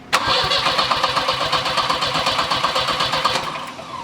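Starter motor cranking a turbocharged Volvo 740 engine in a rapid even rhythm for about three seconds, then the starter's whine falling away as the key is released near the end. The engine is not getting fuel consistently, which the owners put down to the main fuel pump not running.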